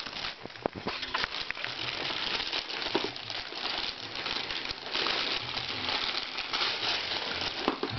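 Wrapping paper rustling and tearing as a toddler pulls it off a gift, in irregular crinkles and rips with small sharp crackles.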